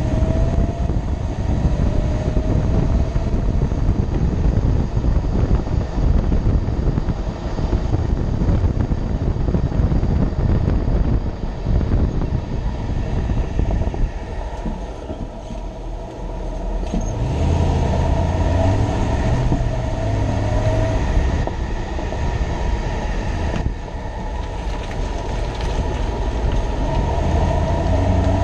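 2006 Toyota Tundra running, with steady road-and-engine rumble and a faint wavering whine. It eases off about halfway through, then builds again.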